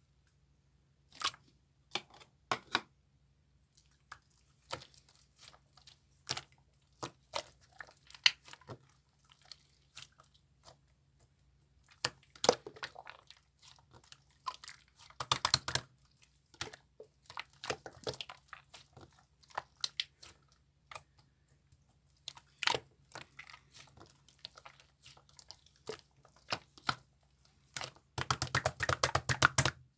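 Slime being squished, poked and stretched by hand, giving irregular sticky clicks and crackly pops, with a fast run of clicks near the end.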